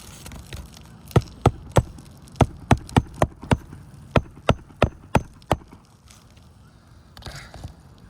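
Hammer driving a roofing nail through an asphalt shingle: thirteen sharp blows, about three a second, in three quick runs.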